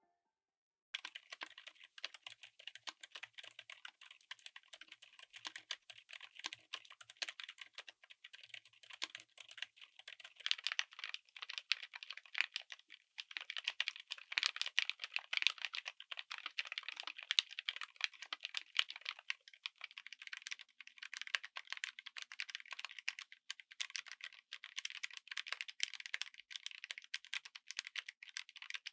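Continuous fast typing on a mechanical keyboard fitted with silent switches: a dense, even patter of muted keystrokes that starts about a second in.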